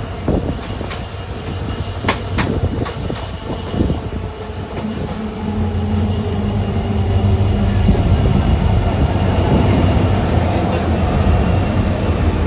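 Train running along the track, heard from a coach: a few sharp wheel clicks over rail joints in the first four seconds, then the steady low hum of the hauling EMD WDP4 diesel locomotive's two-stroke engine building up under power. A thin high whine sounds throughout.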